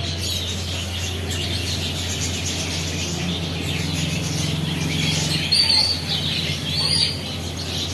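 A flock of small birds chirping and twittering together in a busy chorus, with a few louder, higher calls after the middle and again near the end. A steady low hum runs underneath.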